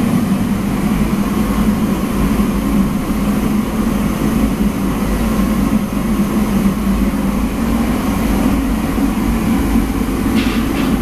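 Steady, loud machinery drone in a large kitchen, with a constant low hum.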